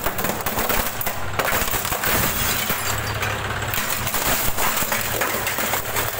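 An old CRT television being crushed under a tractor's rear wheel: its plastic cabinet cracks, snaps and splinters in many sharp breaks, over the low hum of the tractor's engine running.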